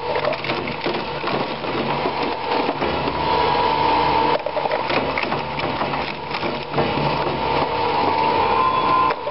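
QS15WL twin-shaft shredder's rotating cutters crunching and tearing hard drives, with frequent irregular sharp cracks over a steady whine.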